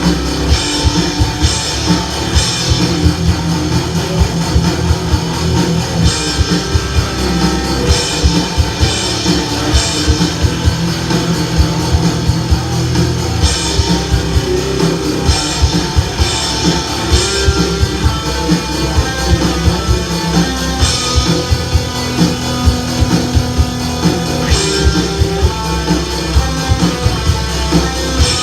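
Instrumental rock music: guitar over a steady drum beat, with cymbal crashes every few seconds.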